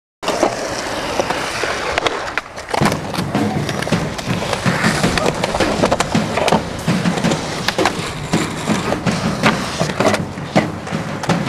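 Skateboard wheels rolling on concrete, with repeated sharp clacks of the board being popped and landing during flip-trick attempts.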